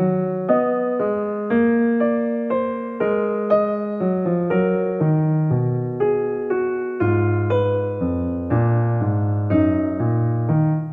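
Background music: a gentle electric piano playing chords and a melody, with new notes struck about twice a second.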